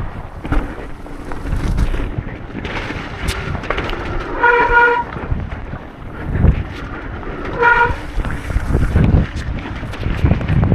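Mountain bike descending a rough enduro trail: a continuous rumble and rattle of tyres and bike over the ground, with heavier thumps from bumps. Two short, steady, high tones sound, one near the middle and a shorter one about three seconds later.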